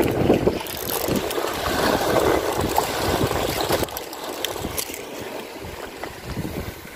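Sea water washing and splashing against breakwater rocks, with wind buffeting the microphone. It drops away about four seconds in, leaving a few light clicks and knocks.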